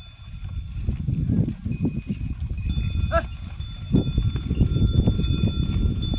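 Bells on working bullocks ringing as the animals pull blade harrows, over a heavy low rumble of wind on the microphone. A short rising-and-falling call comes about three seconds in.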